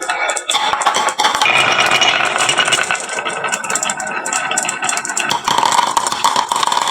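Many marbles rolling and clattering down a HABA wooden marble-run slope and into toy trucks, a dense, continuous rattle of small clicks.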